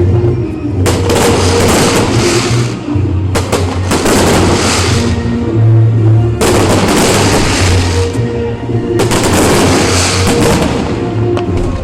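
Fireworks crackling in rapid clusters of sharp reports, five or so bursts each lasting up to about two seconds, over loud music with a steady low beat.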